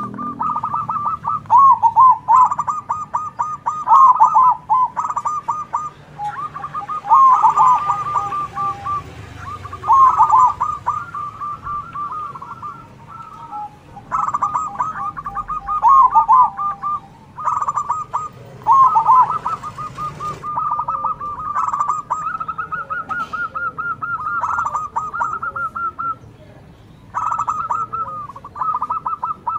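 Zebra doves (perkutut) cooing in repeated rhythmic phrases of short coos near one pitch, in bouts a few seconds long with brief gaps between them. In places two birds' phrases overlap at different pitches.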